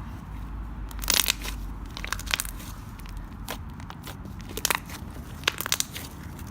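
Slime being squeezed and worked, crackling and crunching in about five short bursts.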